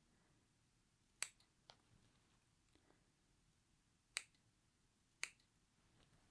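Small sewing scissors snipping into a shirt's neckline seam allowance: three sharp snips with pauses of one to three seconds between them, and a fainter one just after the first. The snips are clips cut to, but not through, the seam line every inch or so.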